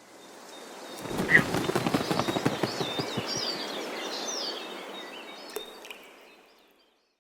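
Outdoor ambience: birds chirping over a steady background noise, with a dense run of short taps or clicks in the first few seconds, fading out near the end.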